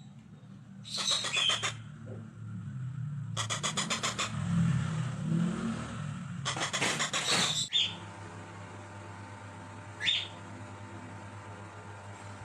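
Parrot giving three harsh, rasping squawks, each about a second long, then a single short falling chirp about ten seconds in. A low steady rumble runs under the first squawks and stops abruptly near eight seconds.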